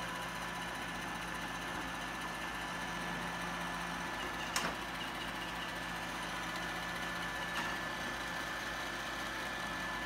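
Robot vacuum running: a steady motor hum with a high whine, and two faint clicks about four and a half and seven and a half seconds in.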